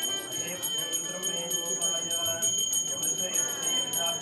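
Puja hand bell (ghanta) rung rapidly and continuously, a steady high ringing made of quick repeated strokes, with people's voices chanting underneath.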